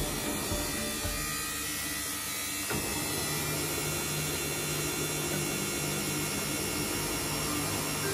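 Samsung washing machine running with a steady motor hum; the low part of the sound thins out about a second in and comes back abruptly just under three seconds in.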